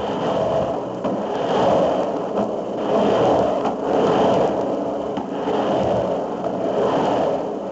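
Skateboard wheels rolling on the concrete of a pipe, a rough rumble that swells and fades about once a second as the board carves up and down the curved walls.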